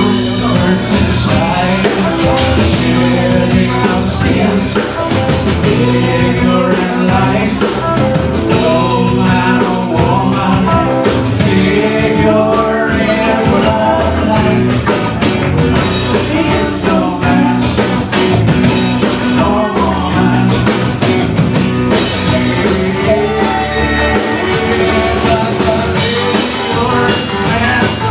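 A rock band playing live: a man singing lead over guitars, electric bass and a drum kit.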